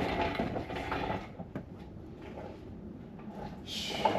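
Clattering and scraping of metal parts being handled, loudest in the first second, then scattered clicks, with a brief hiss near the end.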